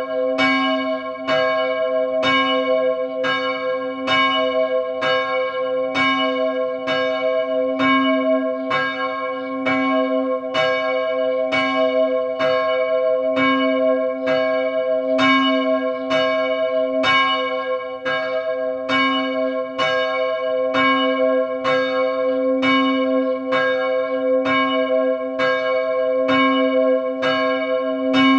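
Church bell ringing steadily, a single bell struck at the same pitch a little more than once a second, its ring carrying on between strokes.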